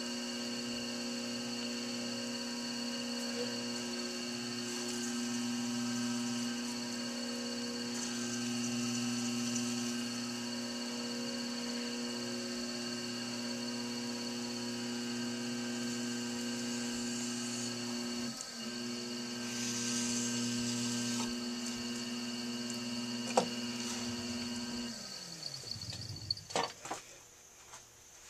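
Electric potter's wheel motor humming steadily with a high whine, with a few brief scraping sounds from work on the spinning clay. A few seconds before the end the motor is switched off and winds down, its pitch falling away, followed by a couple of clicks.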